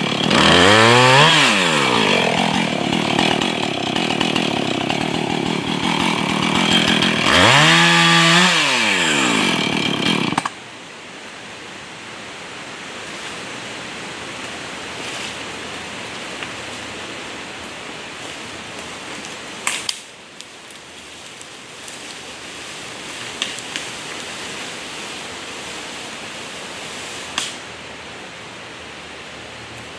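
Husqvarna 445 two-stroke chainsaw revved up twice and run at high speed, then shut off suddenly about ten seconds in. A steady hiss follows, broken by a few sharp clicks.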